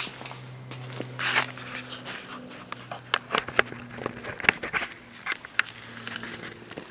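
Nissan 350Z's 3.5-litre V6 idling steadily through a free-flowing 2.5-inch Buddy Club exhaust, a low even hum. Over it come a run of sharp clicks and taps, the loudest sounds, from footsteps and camera handling close to the microphone.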